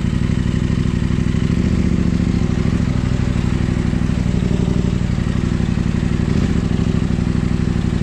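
Off-road motorcycle engine running steadily at idle, with an even, unchanging beat.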